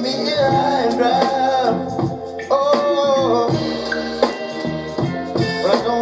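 A song with singing, played from a computer through a home-built stereo preamplifier and amplifier into desk speakers as a listening test of the new preamp.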